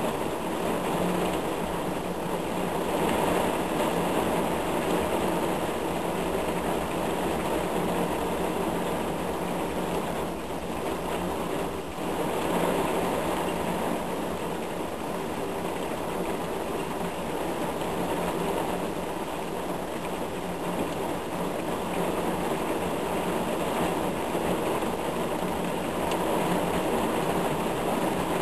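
Heavy thunderstorm rain pouring down in a steady, dense rush of noise.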